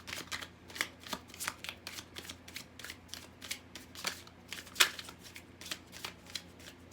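Tarot cards being shuffled and handled by hand: a run of short, irregular card snaps and flicks, with one louder snap about five seconds in.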